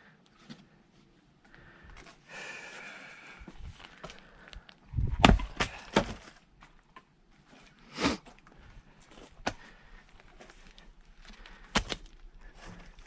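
Firewood being split with an axe: a heavy blow into a round about five seconds in, followed by two quicker knocks as the wood gives, then single sharp knocks of wood on wood around eight, nine and a half and twelve seconds.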